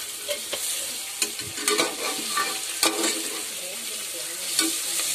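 Sliced onions sizzling in hot oil in a kadai while being stirred, with the irregular scrape and click of the spoon against the pan every second or so. The onions are being sautéed and are not yet golden brown.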